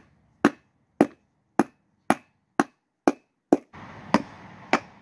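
Rubber mallet tapping a new 3/4-inch-bore bearing into the steel hub of a go-kart wheel: nine sharp, evenly spaced blows, about two a second.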